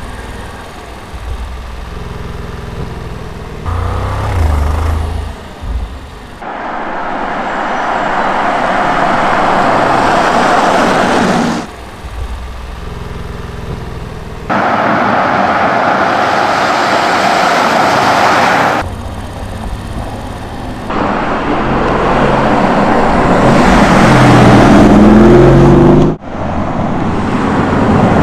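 Porsche Cayenne S 4.0-litre twin-turbo V8 in a series of driving shots that change abruptly every few seconds. The engine's low running note alternates with stretches of tyre and road noise. Near the end the engine note rises as the car accelerates.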